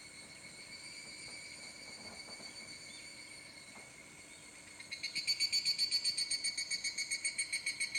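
Sound-effect playback of chirping insects: a steady high-pitched trill, joined about five seconds in by a louder, rhythmic pulsing call at about four pulses a second.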